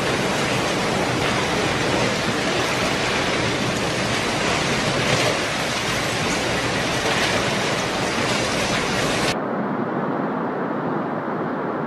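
Heavy rushing water, a loud steady hiss spread across all pitches. About nine seconds in it cuts suddenly to a duller, quieter water sound without the hiss.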